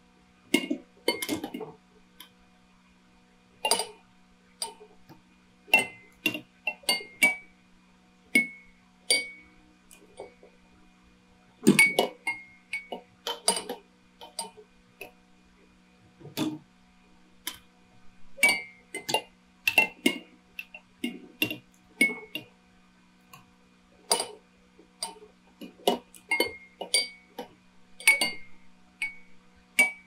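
Many glass drinking-bird toys tipping into their water glasses, giving irregular clinks and taps that overlap at random, a few of them ringing briefly like struck glass. A steady low hum runs underneath.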